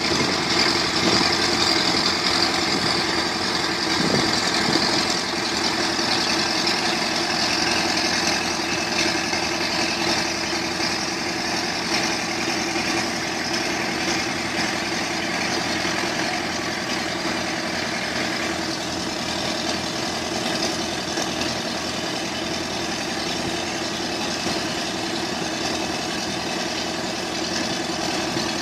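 An engine running steadily at a constant speed, with a steady hiss over it, a little louder in the first several seconds.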